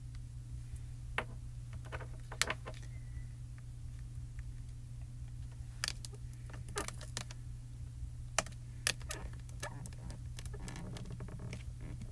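Scattered light clicks and taps of plastic stamping supplies being handled on a craft desk, such as a stamp positioning tool and ink pad cases, with a brief rustle near the end. A steady low hum runs underneath.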